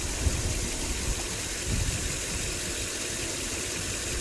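Land Rover LR3's 4.4-litre V8 idling with a steady low rumble and uneven pulses. The engine misfires, and the mechanic thinks a faulty injector is the cause.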